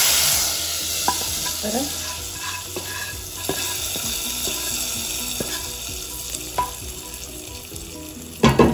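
Hot tadka of oil, fried garlic and dried red chillies poured into cooked dal, sizzling loudly at first and fading to a fainter crackle. Light clinks and scrapes of metal as the pan is emptied, and a sharper knock near the end.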